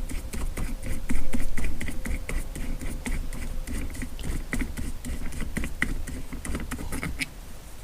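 Plastic interior trim being worked loose by hand: a run of small, irregular clicks, taps and rattles.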